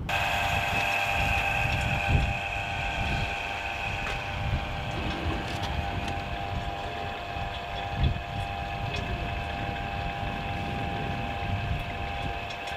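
Refrigeration vacuum pump running steadily with an even whine, pulling the air out of a heat pump's refrigerant lines. A low rumble runs underneath, with a thump about two seconds in and another about eight seconds in.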